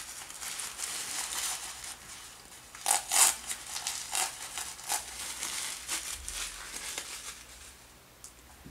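Tissue paper being torn and pulled off a wrapped gift: irregular rustling and crinkling strokes, loudest about three seconds in, fading toward the end.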